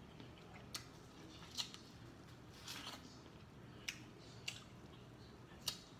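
Close-up eating sounds of someone biting kernels off a cob of corn and chewing, with six crisp, sharp snaps spread through it.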